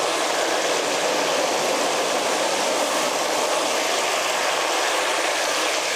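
Breadfruit chips deep-frying in hot oil: a loud, steady roar of sizzling and bubbling right after salt water is added near the end of frying, easing off just before the end.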